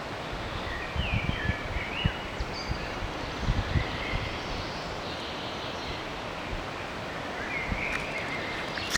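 Forest ambience: a steady rustle of wind through the trees, with short bird calls about a second in and again near the end, and a few low thumps of wind on the microphone.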